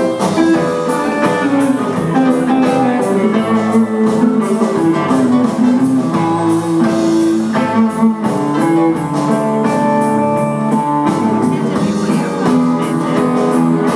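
Live band playing with a steady beat: guitar, keyboard and drums.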